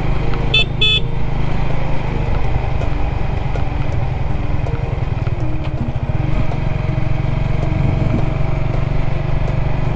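Suzuki GSX-R150 motorcycle's single-cylinder engine running steadily on the move, with two short horn beeps about half a second and a second in.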